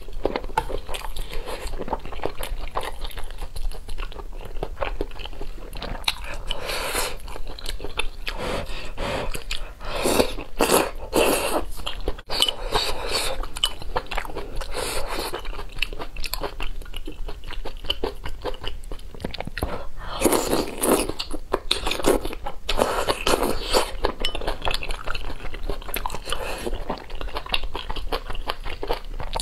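Close-up eating sounds of a person slurping and chewing noodles and meat from a spicy hotpot broth. The wet mouth noises and crunchy bites come in irregular bursts, with busier stretches in the middle and later on.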